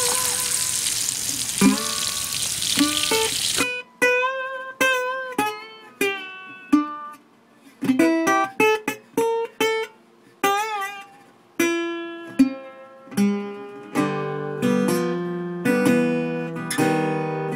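Guitar music: plucked single notes and short phrases, turning into fuller chords near the end. For the first few seconds bacon sizzles in a steel mess-kit pan under the guitar, and the sizzle cuts off suddenly.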